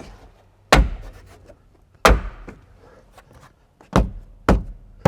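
Five sharp knocks at uneven intervals: car interior trim being pressed and banged home so its plastic clips seat.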